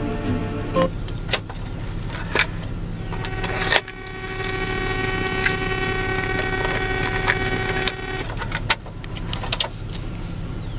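Factory Delco cassette deck in a 1999 Chevrolet Silverado 1500 stopping its tape and ejecting it: the music cuts off, then a run of sharp mechanical clicks and clunks as the cassette is pulled out and pushed back into the slot, over a steady low hum.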